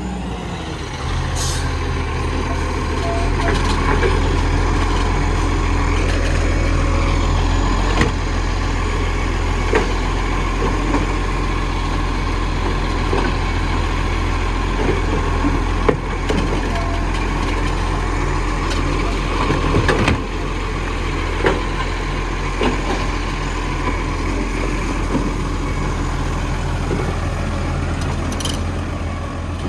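Dennis garbage truck's diesel engine running steadily, with scattered knocks and clanks. A short hiss comes about a second and a half in and another near the end.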